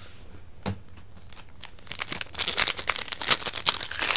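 Foil Yu-Gi-Oh! booster pack wrapper crinkling loudly as it is handled and torn open, starting about two seconds in.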